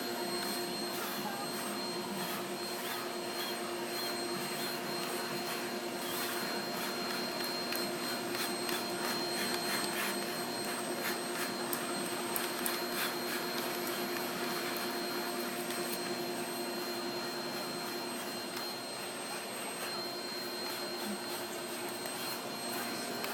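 Vacuum cleaner running steadily, a hum with a high whine, used with a brush to groom a Chihuahua's coat.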